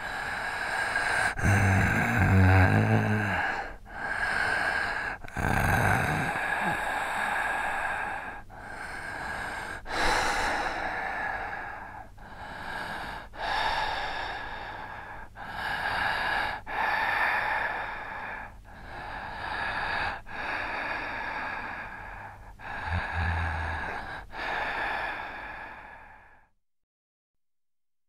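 Scary breathing sound effect: slow, drawn-out human breaths one after another, each a second and a half to two seconds long, with a low groaning voice on a few of them. It cuts off suddenly near the end.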